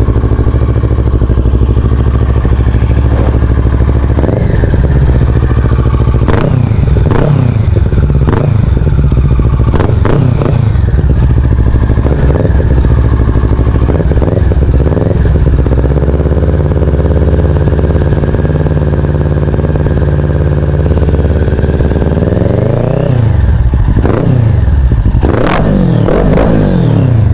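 Kawasaki Ninja motorcycle engine idling while it warms up after a cold start. The throttle is blipped several times a few seconds in, and the engine is revved up and back down near the end.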